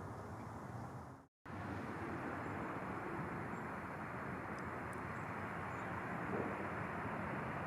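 Steady rushing outdoor noise with no distinct tones. It drops out briefly about a second in at an edit between clips and comes back slightly louder.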